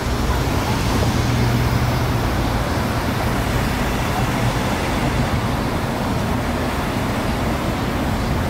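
Steady city road traffic: the mixed engine and tyre noise of cars, vans and a bus passing on a multi-lane street, with a low hum underneath.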